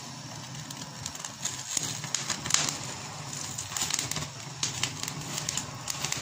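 Gas stove burner flame under oil-coated potatoes on metal skewers: a steady rush with irregular crackles and pops.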